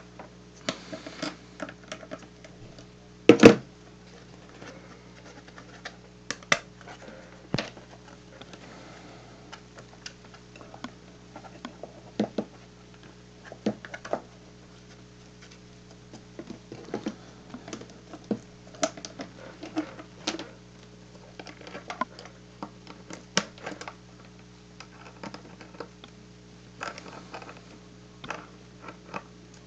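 Irregular clicks, taps and knocks of a white plastic dipole centre plate and its wires being turned over and handled on a workbench mat, with one louder knock about three and a half seconds in, over a steady low hum.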